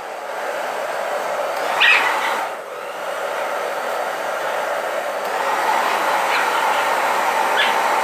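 Twister handheld hair dryer blowing steadily close to a wet small dog, which whimpers briefly about three times.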